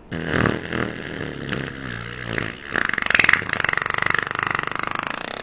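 A long fart sound effect. It is pitched and sputtering for the first two seconds or so, then turns into a fast, buzzing flutter that is loudest a little past the middle.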